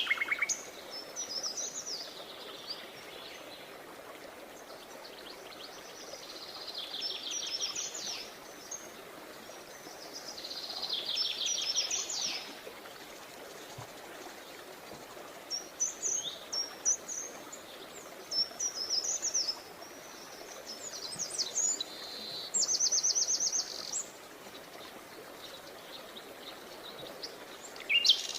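Songbirds singing: a trilled phrase of rapid high repeated notes every few seconds, with clusters of short chirps between them, over a steady low hiss.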